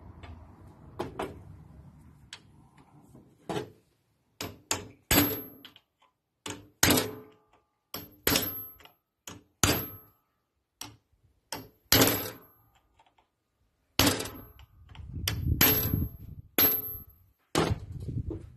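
Sharp metal taps and clicks, about a dozen at irregular spacing, each with a brief high ring, as a screwdriver works against the Bendix drive of a Paris Rhone starter held in a bench vise.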